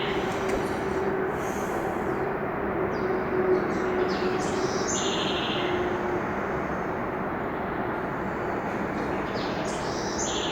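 Steady outdoor background noise with a faint hum, and a few short bird chirps about five seconds in and near the end.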